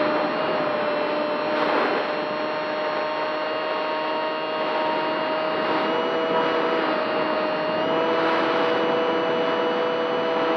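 Radio-controlled model Spitfire's motor and propeller whining steadily in flight, heard from on board over a steady hiss, its pitch shifting slightly a few times.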